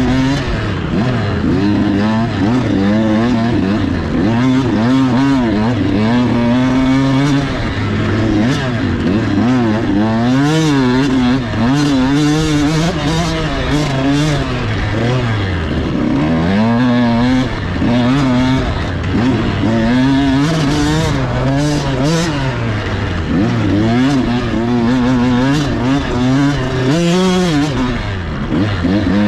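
85cc KTM two-stroke dirt bike engine, heard from the rider's helmet camera, revving hard and easing off again and again as the throttle is opened and shut. Its pitch climbs and drops every second or two.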